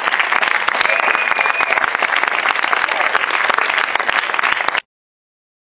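Live audience applauding, with a brief cheer about a second in; the applause cuts off abruptly near the end.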